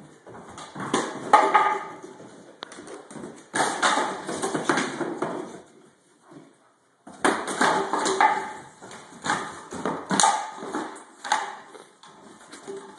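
Rottweiler puppy playing on a hardwood floor: irregular bursts of scuffling and knocking, with a pause of about a second and a half near the middle.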